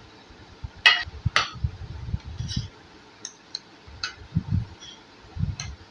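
Kitchen utensil clinking against a dish: two sharp clinks about a second in, then several lighter ticks, with low dull knocks of the dish being handled.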